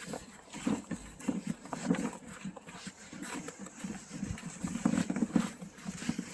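Large plastic wheeled garbage bin being pulled over packed snow and ice, its wheels and body rattling and knocking irregularly.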